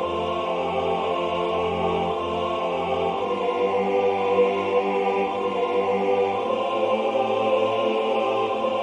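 A choir singing in three parts at a steady allegretto: one voice repeats a quick eighth-note 'Ah' figure while the two lower voices sing held notes on the words 'heat and sun bring life and fun'.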